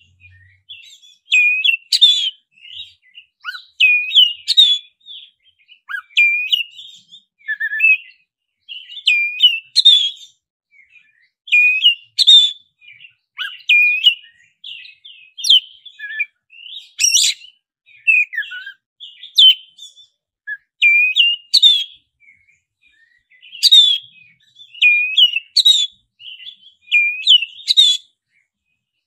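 Black-bellied Oriental magpie-robin (kacer dada hitam) singing: short whistled phrases of swooping notes, each with a sharp high note, repeated about every two seconds.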